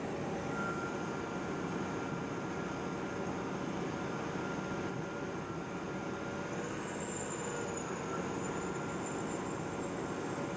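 Wirtgen 210Fi cold milling machine running steadily while cutting asphalt and loading a truck: the engine, cutting drum and conveyor make an even, unbroken din with a thin steady whine through it.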